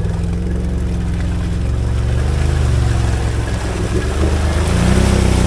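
Can-Am Outlander ATV's V-twin engine running under shifting throttle as it wades through a muddy creek, with water churning around the tyres. The engine note rises and eases a couple of times.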